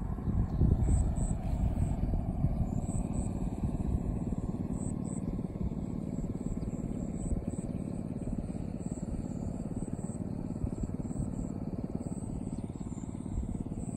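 Wind buffeting the microphone: a steady low rumble, with gusts strongest in the first two seconds.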